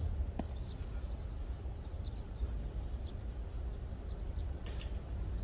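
Steady low rumble of wind buffeting the microphone, with one sharp click about half a second in and a few faint, brief chirps.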